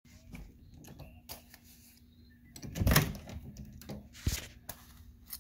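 A series of knocks and thumps from a door, the loudest about three seconds in and another a little after four seconds, over a faint steady hum.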